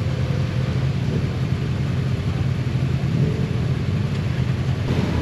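Motorcycle engine running steadily while riding, a low even hum mixed with wind and road noise.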